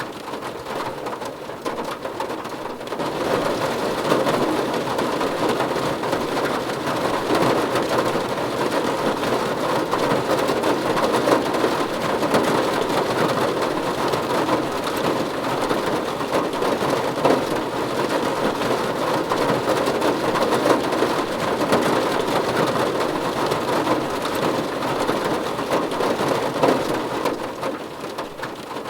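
Steady rain falling on a car's roof and windows, heard from inside the car. It grows heavier about three seconds in and eases a little near the end.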